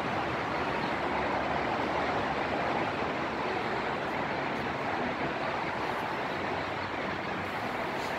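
Steady hum of city street traffic, an even noise without distinct events.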